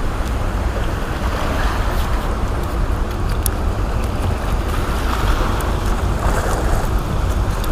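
Steady rushing of water pouring through an open dam and down the rocky stream, with a few faint clicks.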